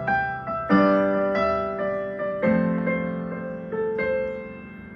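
Electronic keyboard on a piano voice playing a slow pop song: chords struck about once a second, each left to ring and fade.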